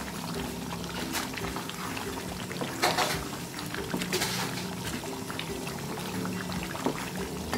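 Wooden spatula stirring simmering mutton gravy in a nonstick pan: wet sloshing and scraping, with the loudest splash about three seconds in. Soft background music plays underneath.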